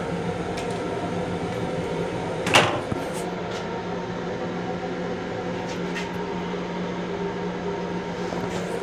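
Steady hum inside the restroom of an M7 electric railcar, with one sharp clack about two and a half seconds in.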